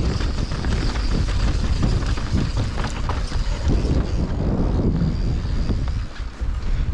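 Wind buffeting the microphone of a camera on a moving mountain bike, with the Yeti SB150's knobby tyres on a dry dirt trail and small rattles and clicks from the bike. The wind dips briefly just after six seconds.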